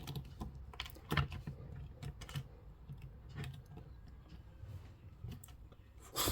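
Irregular small clicks and taps of a plastic action figure being handled and posed, with a louder knock about a second in and another near the end.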